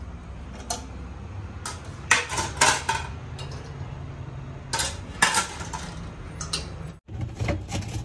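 Dishes and glassware clinking as they are handled, in short clusters of clinks a second or so apart, over a steady low hum.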